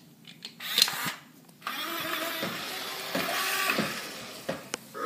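BB-8 toy robot's drive motor whirring as it rolls across the hard floor, a sustained whir setting in about one and a half seconds in and fading near the end, after a brief noisy scuffle about a second in.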